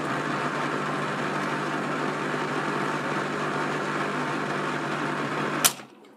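Servis Caress 1300 washing machine running with a loud, steady noise and a constant hum; its drum bearings are very badly worn. It cuts off suddenly with a sharp click about five and a half seconds in.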